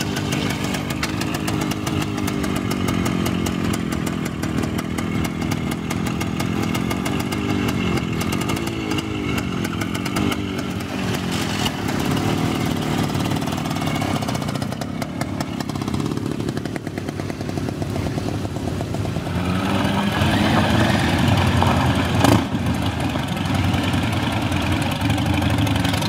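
Motorcycle engines running, led by a small classic single-cylinder bike firing in rapid pulses at idle with occasional blips of throttle. From about 20 seconds in, engines rev up as motorcycles pull away, with a single sharp knock a couple of seconds later.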